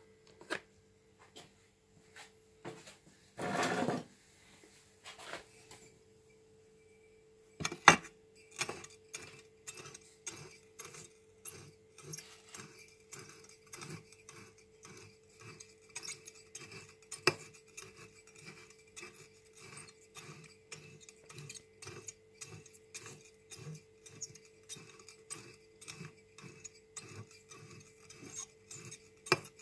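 Green glass wine bottle being turned by hand in a chipboard jig against a glowing heating coil, giving a run of small rubbing clicks two to three a second over a faint steady hum. A short rustle comes about three and a half seconds in, and a sharp knock about eight seconds in is the loudest sound.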